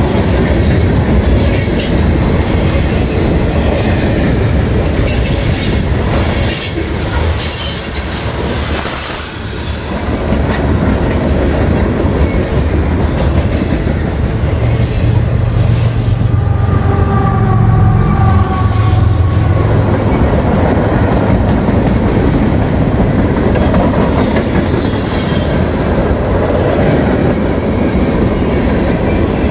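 Freight cars of a passing train rolling by close at hand, wheels and couplers rumbling and clattering on the rails. Near the middle a low drone swells for several seconds along with a thin squeal from the wheels.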